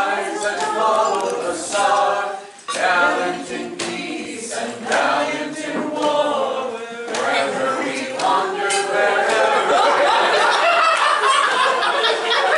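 Unaccompanied singing, led by a woman's voice. From about eight seconds in, several voices overlap, as a group sings along.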